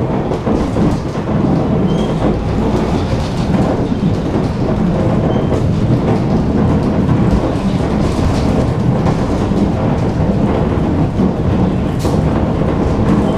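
Tram running along the track: a loud, steady rumble of steel wheels on rails and running gear, with a sharp click about twelve seconds in.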